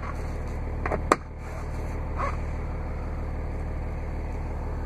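The Cummins 24-valve turbo diesel inline-six idling, a steady low hum heard from inside the cab. About a second in come a couple of sharp plastic clicks from the sun visor being moved.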